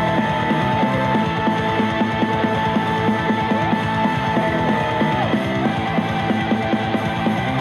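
Guitar-led rock music playing steadily through speakers driven by a Douk Audio M4 amplifier during a sound test.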